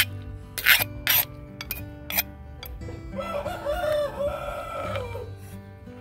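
A rooster crows once, one long wavering call about three seconds in that falls at the end, over background music. In the first two seconds there are several sharp clicks and scrapes.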